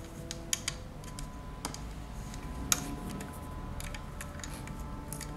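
Irregular light clicks and taps of a plastic hook against the plastic pegs of a rubber-band loom board as rubber bands are set and straightened, with one sharper click a little past halfway.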